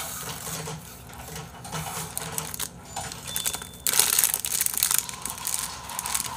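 Plastic ice-pop packaging crinkling and crackling as it is handled and squeezed, with a louder, denser stretch of crackling from about four seconds in lasting over a second.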